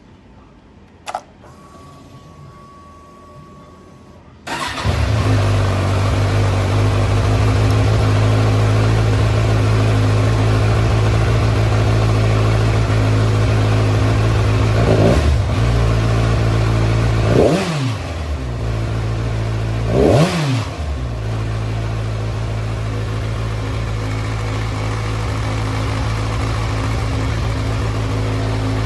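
A click and a short steady whine, then the 2014 Kawasaki Z1000's inline-four starts about four seconds in and idles. Near the middle it is blipped three times, the pitch rising and falling each time, then it settles back to a steady idle.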